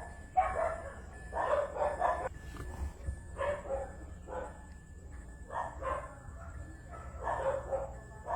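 A dog barking repeatedly, in short runs of barks every second or two.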